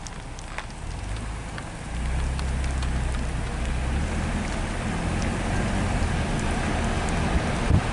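Car engine and tyre noise heard from inside the cabin, a steady low hum with rushing road noise that gets louder about two seconds in as the car picks up speed.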